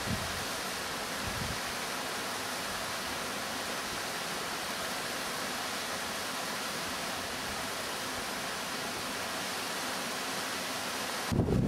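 Steady, even rush of water from a small waterfall. Near the end, wind suddenly buffets the microphone.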